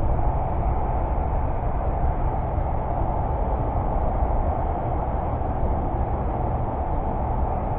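Steady outdoor background rumble and hiss with no distinct events; it does not rise, fall or change.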